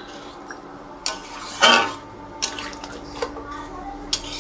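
A spoon scraping and knocking against a metal cooking pan as it stirs a thick curry: about five separate strokes, the loudest about a third of the way in.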